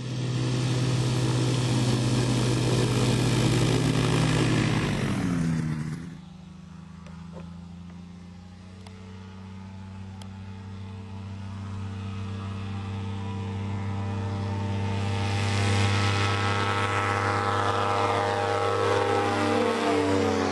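Quicksilver Sport II ultralight's two-stroke engine and pusher propeller running at high power. It is loud and close at first, then its pitch drops about five seconds in as it goes past and the sound falls away. It builds again as the aircraft approaches, and the pitch falls once more as it passes overhead near the end.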